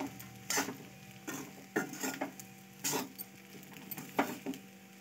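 A spatula scraping and knocking against a kadhai as sabudana khichdi is stirred, in short irregular strokes about every half second to second, over faint sizzling in the pan.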